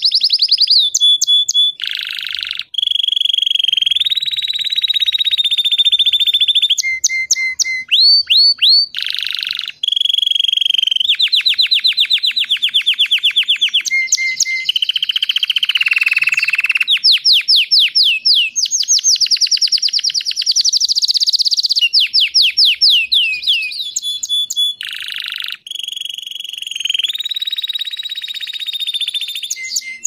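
Red-factor canary singing a long, continuous song: fast trills of rapidly repeated notes alternating with steady high whistled tones and quick falling sweeps, with only brief breaks.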